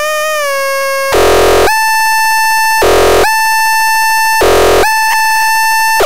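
Handmade patch-cable synthesizer (the Pharatron) sounding a loud, buzzy electronic tone with many overtones. The tone wavers slightly at a lower pitch, then jumps to a steady higher pitch about a second in. Three short, harsh noisy bursts break in about every one and a half seconds.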